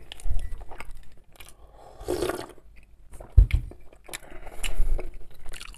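Close-miked chewing and mouth sounds of a person eating soft layered cake, with the cake being handled on a plate and one dull knock about three and a half seconds in.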